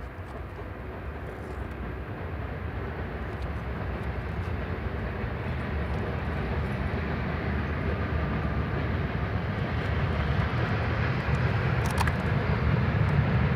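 Low, steady engine rumble growing louder throughout, with a light click about twelve seconds in.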